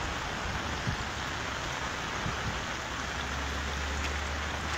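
Heavy rain pouring onto a flooded street, a steady hiss of drops on wet pavement and standing water. A low rumble runs underneath and grows stronger about three seconds in.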